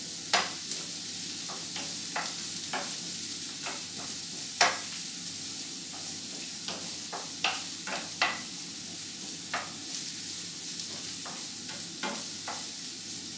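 Carrot strips sizzling in a little oil in a frying pan while being stirred, with a wooden spoon knocking and scraping against the pan at irregular moments over a steady hiss.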